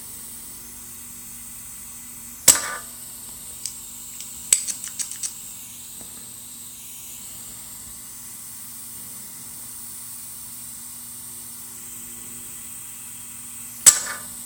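Spring-loaded solder sucker (desoldering pump) firing with a sharp snap about two and a half seconds in and again near the end, sucking molten solder off a circuit-board joint. A few lighter clicks come in quick succession a little after the first snap.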